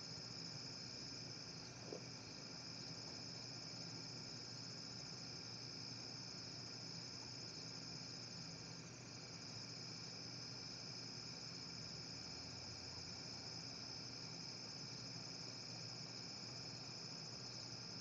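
Night insects chirring in a steady high-pitched chorus over a faint, steady low hum.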